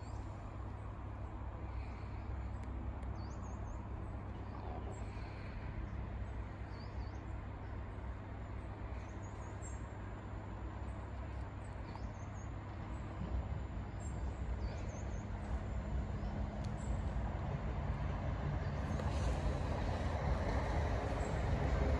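Steady low rumble with small birds chirping now and then. Over the last several seconds a Class 320 electric multiple unit approaches the station and grows steadily louder.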